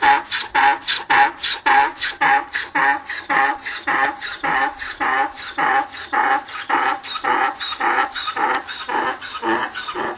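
Donkey braying: a long, fast run of rhythmic hee-haw pulses, about four a second, slowly weakening.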